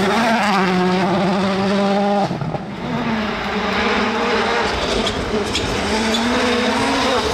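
Citroën C3 WRC rally car's 1.6-litre turbocharged four-cylinder engine running hard on gravel, with gravel and dust spraying from the tyres. The sound breaks off abruptly about two seconds in and comes back with the car approaching again, the engine note rising and falling.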